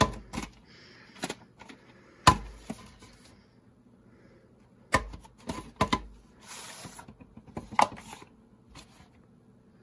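A VHS cassette and its sleeve handled by hand: scattered sharp clicks and knocks, the loudest about two seconds in, and a short sliding rustle between six and seven seconds in.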